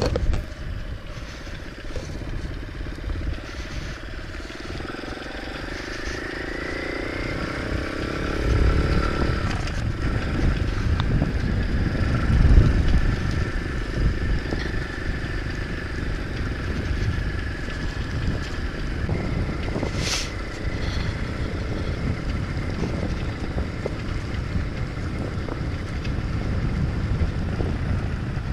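Nitro Sky 125cc pit bike's single-cylinder four-stroke engine running under way, its pitch rising as it revs up about six to nine seconds in, then holding steady. Wind buffets the helmet camera's microphone throughout, and there is one sharp click about twenty seconds in.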